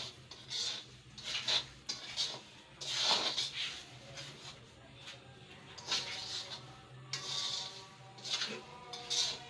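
A spatula scraping and stirring ghee-roasted semolina in a kadhai, in repeated irregular strokes, over a steady low hum.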